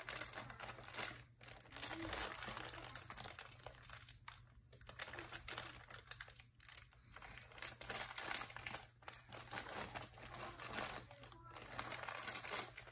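Plastic food packaging crinkling and rustling as a toddler's hands rummage through a shelf of packets and cans, in irregular spells with short pauses between them.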